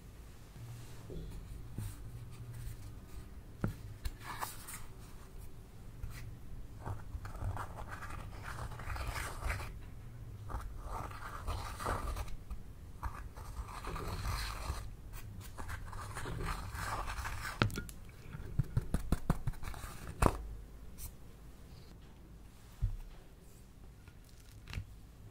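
A tool scraping and crumbling pressed eyeshadow out of a makeup palette. A bit over halfway through comes a quick run of sharp taps and clicks, and a couple of single knocks follow near the end.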